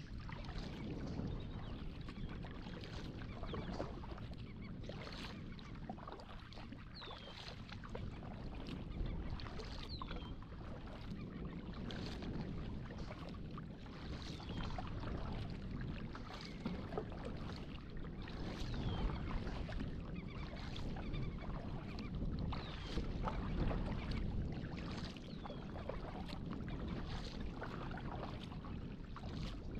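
Kayak paddle strokes dipping and splashing in the water in a steady rhythm, with water running along the hull. A faint short, high, falling chirp recurs every few seconds.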